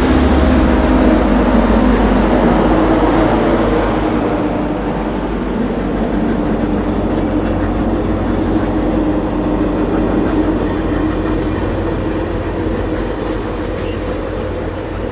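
Union Pacific 4014 'Big Boy' steam excursion train rolling past, a steady loud rumble that eases slightly toward the end.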